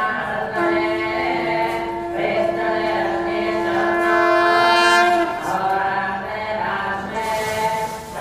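Conch shell (shankha) blown in one long steady note, starting about half a second in, swelling louder and stopping abruptly about five seconds in, over men chanting Vedic mantras for a Shiva abhishekam.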